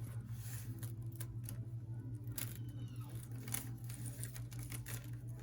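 Irregular small clicks and light rattling of a metal jewelry chain being handled and untangled, over a steady low hum.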